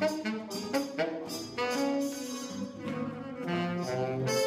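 Small chamber ensemble playing, with saxophone and trumpet lines most prominent, in a jazz-like style: a string of pitched notes with several sharp attacks.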